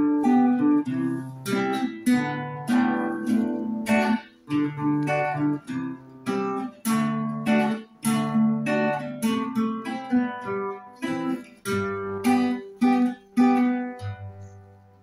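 Background music: an acoustic guitar playing chords in a steady rhythm, the last chord ringing out and fading away near the end.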